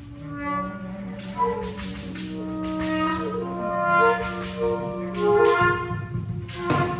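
Freely improvised wind ensemble: saxophone, clarinet and other reeds play long notes that overlap and clash in pitch, over a steady low held tone. Sharp batá drum strokes are scattered throughout.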